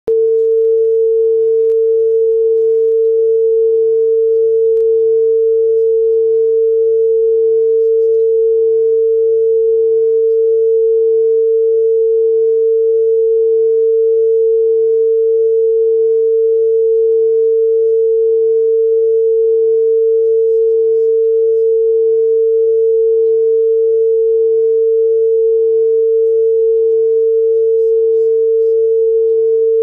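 Loud, steady single-pitch line-up test tone played with television colour bars: the reference tone at the head of a broadcast tape.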